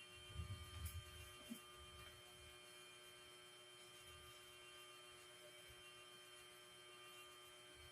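Near silence: a faint steady electrical hum, with a few soft low thumps and clicks in the first two seconds.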